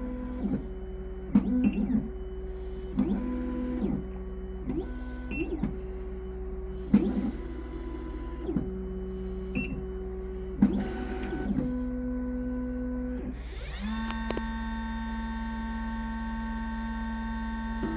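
Triton key-cutting machine's stepper motors moving the carriage into position in short, steady-pitched runs, with a click at each stop and start. About 14 seconds in, the cutter spindle motor spins up with a rising whine and then runs steadily, ready to cut the key.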